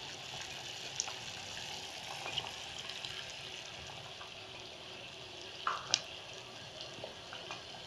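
Sugar syrup boiling in an aluminium pan, a steady bubbling hiss, with milk just stirred in to bring the impurities up as scum. A few light clicks, and a louder knock about six seconds in.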